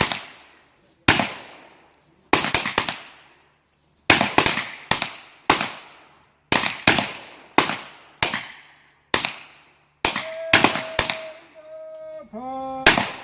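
Revolver shots from several shooters firing at once, well over a dozen sharp cracks at irregular spacing, some close together, each trailing off in echo.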